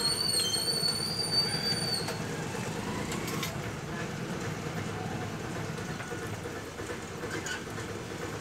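Steady low rumble of a passing vehicle, with a high, slightly wavering squeal over the first two seconds.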